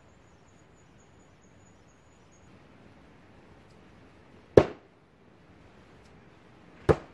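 An axe thrown at a wooden target, striking it twice with two sharp thuds a little over two seconds apart.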